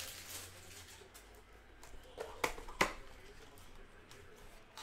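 Quiet handling of a trading-card box and its packs, with a few light clicks and taps about two to three seconds in.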